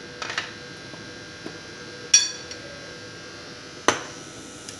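Steel spoon clinking against a glass mixing bowl while stirring flour: a few light clicks, one ringing clink about two seconds in, and a sharp tap near the end.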